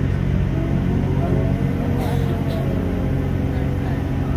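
Class 166 diesel multiple unit running, heard from on board: a steady low engine and transmission drone with a whine that rises and then eases in pitch during the first couple of seconds.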